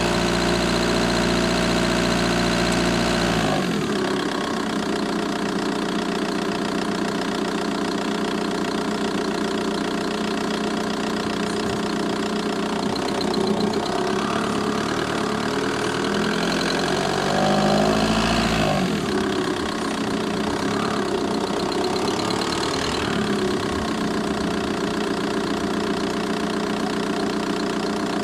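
VW Bora 1.9 TDI four-cylinder turbodiesel engine idling with a ticking from the engine bay. It briefly rises in pitch and settles back about two thirds of the way through.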